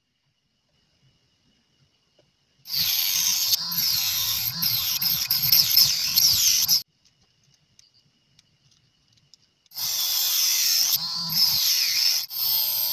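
Handheld mini rotary tool spinning a small cutting disc through a small piece of wood, in two runs of a few seconds each. The first starts about three seconds in and the second about ten seconds in; each is a high whine that wavers in pitch as the disc bites.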